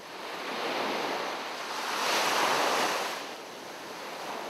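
Ocean waves washing onto a shore, a noisy rush that swells twice, the second time louder, about two seconds in, then eases off.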